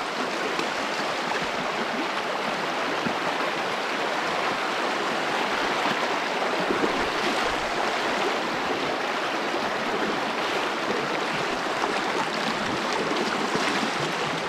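A flooding stream rushing steadily with a strong current.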